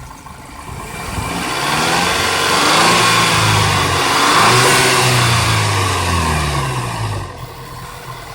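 Stock VW Golf GTI Mk V 2.0T turbocharged four-cylinder engine with its factory air intake, revved up from idle, held high with some rise and fall, then let back down to idle near the end. The sound stays fairly subdued: not too noisy at all.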